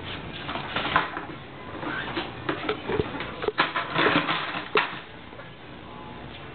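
Ferrets scuffling and scratching on a hard floor around a plastic bucket, with several sharp knocks and clatters as the bucket is bumped. The scratching is busiest in the middle and settles near the end.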